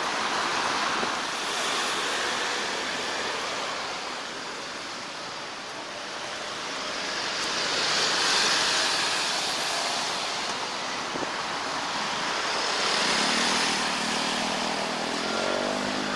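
Road traffic: a steady rush of passing vehicles' tyre noise, swelling as cars go by about halfway through and again near the end, where an engine's hum comes in.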